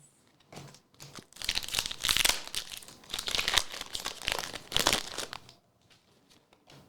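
Foil Pokémon booster pack wrapper crinkling and tearing as it is opened, in a run of rough crackles lasting about four seconds, with a few light clicks near the start and end.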